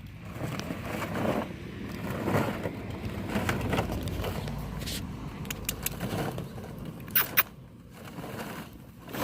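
Hollow plastic ball-pit balls rustling and clattering as puppies move through them and chew on them, with many small clicks and crackles and two sharp cracks about seven seconds in.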